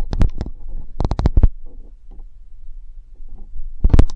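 A series of sharp taps and knocks: two early, a quick run of four about a second in, then scattered faint ones and a cluster near the end.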